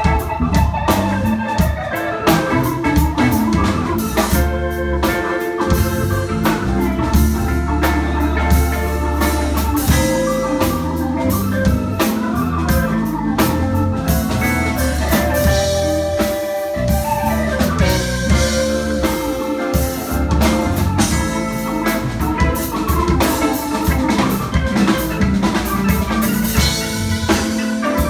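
Live blues band playing an instrumental passage: electric organ sound from a keyboard over drum kit, bass and electric guitar, with long held organ notes near the middle.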